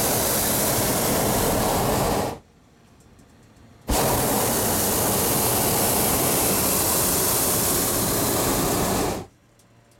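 Hot air balloon's propane burner firing in two blasts: the first cuts off about two seconds in, and after a pause of a second and a half a second blast runs for about five seconds and cuts off sharply.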